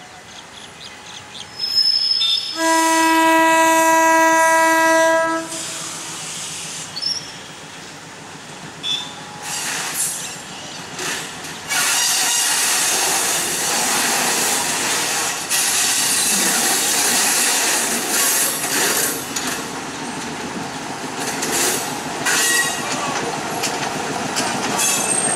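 A diesel locomotive sounds one steady horn blast, about three seconds long, near the start. Then the passenger train rolls past close by, its wheels clattering over the junction points and rail joints, with a few brief high wheel squeals.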